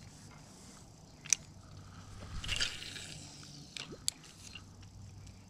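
Spinning reel being handled: a sharp click a little over a second in, a short rasping whir around the middle, and two quick clicks near four seconds.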